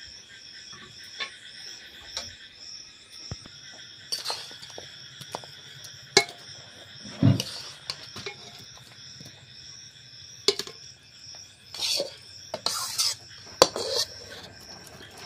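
A metal spatula knocks and scrapes against a wok and a pressure cooker pot as chicken curry is scraped from one into the other: irregular clinks and scrapes, busiest near the end. Crickets chirp steadily in the background.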